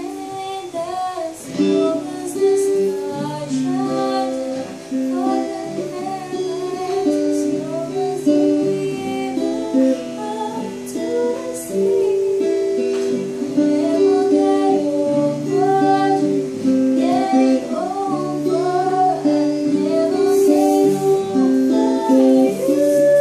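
A woman singing a slow song to a strummed and picked steel-string acoustic guitar.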